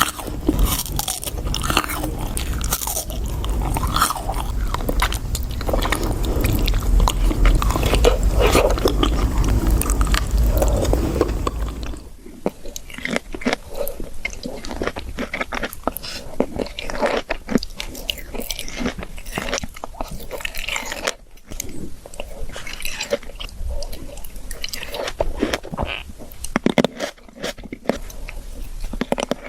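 Close-miked ASMR eating: a person biting into and chewing fresh fruit with wet crunches and smacks. About twelve seconds in the sound cuts to a quieter, crisper recording of the same kind of eating.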